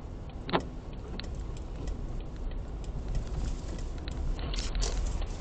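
A car on the move: steady low road and engine rumble with scattered clicks and rattles, and one sharper click with a short ringing tail about half a second in.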